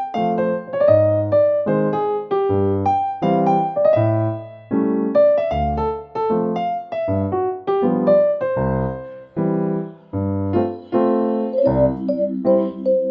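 Background music: solo piano playing a melody over bass notes at an easy pace.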